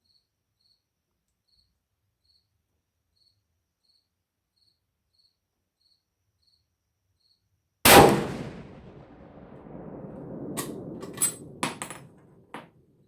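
A single rifle shot from a .416 Ruger bolt-action about eight seconds in, very loud and sharp, with a long decaying echo. A few sharp metallic clicks follow, typical of the bolt being worked. Before the shot there is only faint, regular insect chirping.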